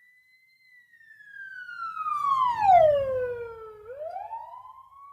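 Police car siren sweeping past in a Doppler effect applied in Adobe Audition: one long wail that falls steadily in pitch and swells to its loudest about three seconds in. It then jumps back up in pitch and fades away.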